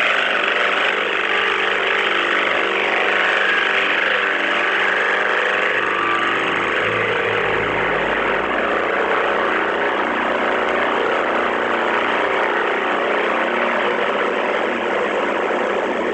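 A recorded 'tripod' sound played back through a phone voice-changer app's zombie effect: a steady, dense drone with a constant low hum beneath it, which stops abruptly at the end.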